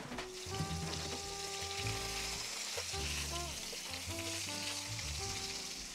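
Cornmeal-crusted butterfish fillets frying in hot oil in a cast-iron skillet, a steady sizzle, with a metal spatula and fork moving in the pan as the fillets are turned. Background music plays underneath.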